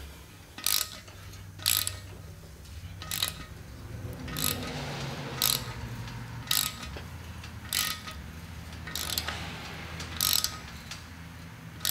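Hand ratchet driving a spiral tap through a guide bushing into an LS engine block's head-bolt hole to cut threads to full depth. A short burst of ratchet clicks comes on each back-swing, about once a second.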